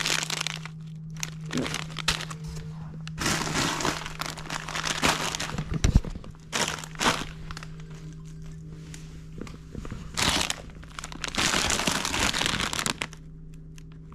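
Plastic chip bags crinkling and rustling as they are picked up and sorted in cardboard boxes, in several irregular bursts, over a faint steady low hum.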